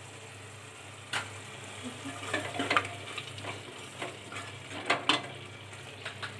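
A wooden spatula stirs and scrapes onion-ginger-garlic masala frying in oil in an aluminium pressure cooker, over a low sizzle. Short, irregular scraping strokes start about a second in.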